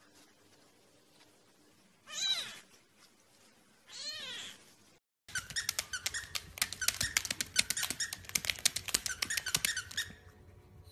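A cat meows twice, two short calls that bend up and down in pitch, about two seconds apart. After a short break, a fast, dense run of sharp clicks and squeaks, louder than the meows, goes on for about five seconds and stops.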